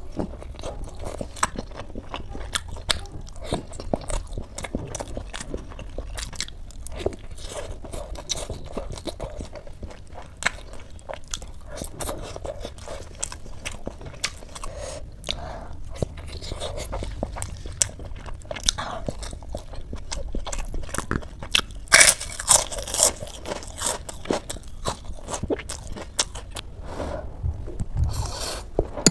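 Close-miked eating: a person biting into and chewing momo dumplings and noodles, with irregular crunches throughout and a louder stretch of crunching about three quarters of the way through.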